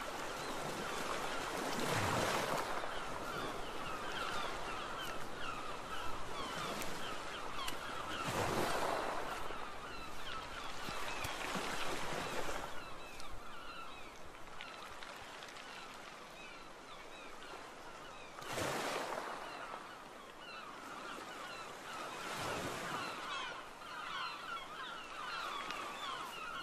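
Waves washing in surges every few seconds, over the continuous chatter of many small birds calling.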